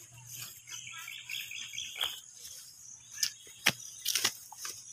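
Outdoor field ambience: rapid chirping for about a second, then several sharp clicks near the end.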